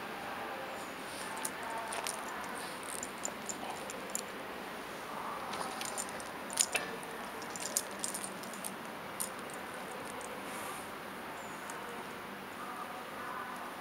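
Steady open-air rail-yard ambience with a scatter of small sharp clicks and rattles, the sharpest about six and a half seconds in.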